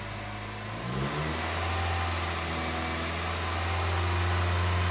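2001 Chevy Prism's Toyota 1.8L four-cylinder engine idling shortly after a cold start, still warming up in open loop. About a second in, its steady hum rises in pitch and gets a little louder, then holds steady.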